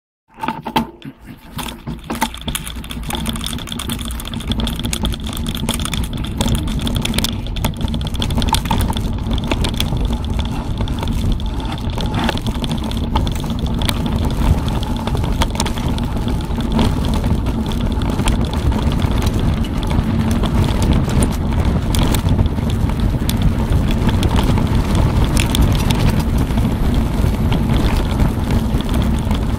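Mountain bike descending a bumpy dirt and grass track: wind rushing over the handlebar-mounted camera's microphone, with tyre rumble and frequent knocks and rattles from the bike jolting over the ruts. It builds up over the first several seconds as the bike gathers speed, then stays steady.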